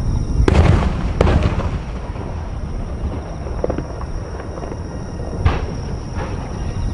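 Large aerial firework shells exploding: two loud booms in quick succession about half a second in, then two fainter reports near the end, over a steady low rumble.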